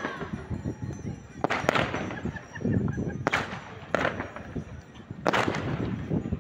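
Fireworks going off in a display: a string of sharp bangs, about six in the few seconds, some in quick pairs, with a low rumble between them.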